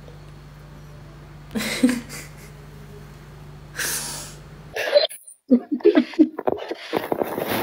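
A woman's loud breathy bursts of laughter, twice. From about five seconds in come rapid pulses of two women laughing hard. A steady low hum under the first part cuts off suddenly just before the second part.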